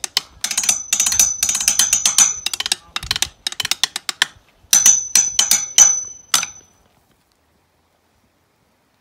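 Drumsticks playing fast patterns on a metal pipe railing. The sharp stick hits make the rail ring with a high metallic tone. The playing breaks off briefly about halfway, resumes, and stops about two-thirds of the way through.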